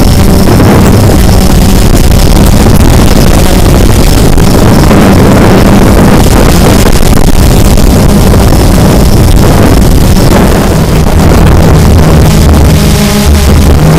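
Multirotor drone's motors and propellers whirring, loud and steady as picked up by the camera mounted on the drone, mixed with wind rushing over its microphone.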